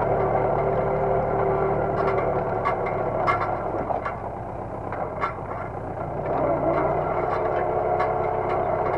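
Universal DT445 tractor's three-cylinder diesel engine running under load while pulling a disc harrow through tilled soil, with clattering and knocks from the harrow's discs and frame. The engine note sags for a couple of seconds near the middle and picks back up after.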